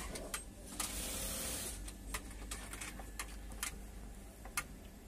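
Light, irregular clicks and knocks from a 1990-made geared grinding machine being handled, its gear and handle moving, with a brief hiss in the first couple of seconds.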